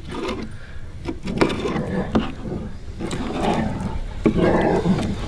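Fillet knife working a redfish fillet off its skin on a plastic fillet table: several scraping, slicing strokes about a second apart, with a few sharp taps of the blade against the board.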